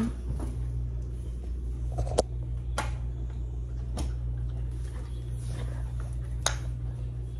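A steady low hum with a few sharp clicks and taps scattered through it.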